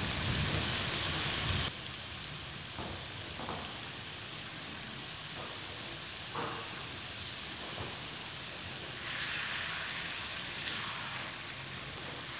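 Chicken pieces and tomatoes sizzling in hot oil in a wok, a steady frying hiss that drops suddenly about two seconds in and swells again near the end. A wooden spatula knocks and scrapes against the pan a few times as the chicken is stirred.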